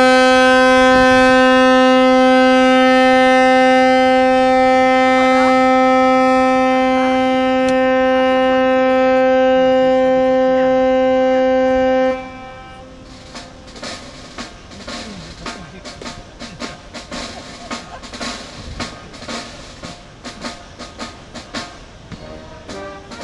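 A ship's horn sounds one long, steady blast of about twelve seconds and then cuts off. After it, drums start playing a steady beat.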